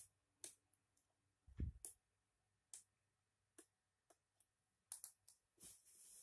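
Faint, scattered clicks and small knocks of a hand screwdriver working the screen-hinge screws of an Acer Aspire laptop, with one louder low thump about a second and a half in.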